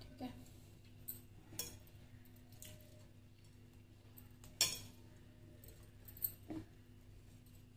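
Faint rustling with scattered small clicks and clinks as fingers press desiccated coconut onto the sides of a frosted cake on a plate. The sharpest clicks come about four and a half and six seconds in, over a low steady background hum.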